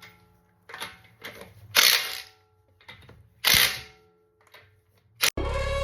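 Three short bursts of metal tool noise with a faint metallic ring between them: a 19mm socket working loose the front wheel's lug nuts. Background music with a beat starts near the end.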